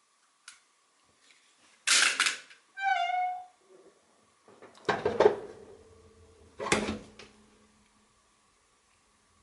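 Metal clanks and knocks: two strong hits about five and seven seconds in that ring on briefly, a sharp rattle about two seconds in, and a short squeak about three seconds in. A faint steady whine lies underneath.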